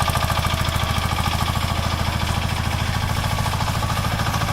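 Single-cylinder air-cooled engine of a mini excavator running steadily with a rapid, even chugging beat.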